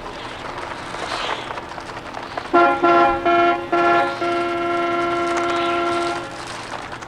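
Car horn honking from the film's soundtrack: four short honks about two and a half seconds in, then one long held honk of about two seconds. Before the horn there is a rough, noisy wash of film sound.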